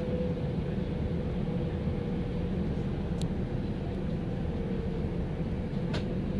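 Bombardier Talent 2 electric multiple unit running at speed, heard from inside the car: a steady rumble of wheels on rail with a thin steady tone from the drive, and two short clicks about three and six seconds in.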